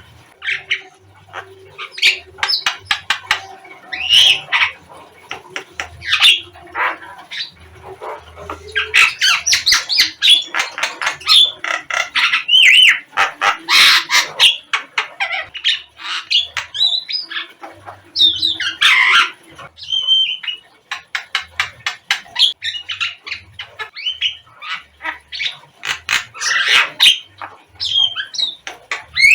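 Javan myna calling: a rapid, chattering run of harsh squawks, clicks and short whistles, with a few brief pauses. It is the kind of call used as a lure to get caged mynas to answer.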